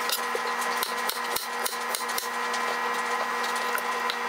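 Chef's knife dicing firm lobster mushrooms on a plastic cutting board: a quick run of knife strikes against the board, about three or four a second.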